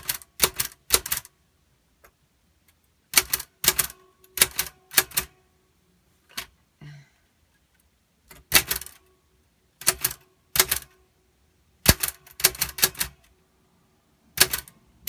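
We R Memory Keepers Typecast manual typewriter being typed on: keys and typebars struck in short bursts of a few sharp clacks each, with pauses of a second or two between bursts.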